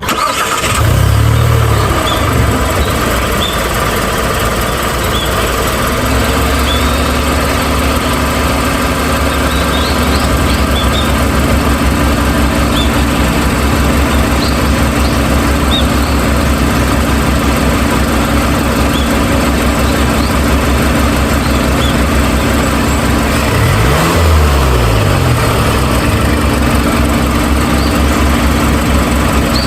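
Steady low engine-like rumble, with a steady hum joining about six seconds in and a brief wavering drop and rise in pitch around twenty-four seconds.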